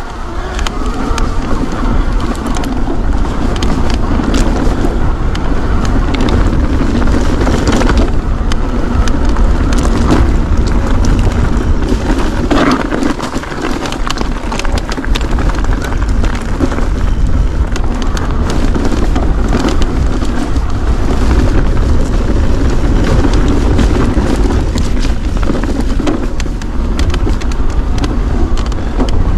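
Mountain bike riding over stony singletrack: the tyres roll over loose rock and gravel and the bike rattles with many small clicks, under a steady rumble of wind on the microphone.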